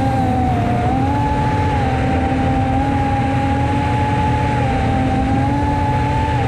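Brushless motors of an FPV racing quadcopter whining steadily under power, the pitch dipping and rising slightly several times with throttle changes.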